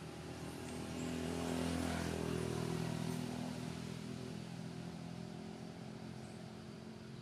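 A motor vehicle's engine passing by: a steady low hum that grows louder to a peak about two seconds in, then slowly fades away.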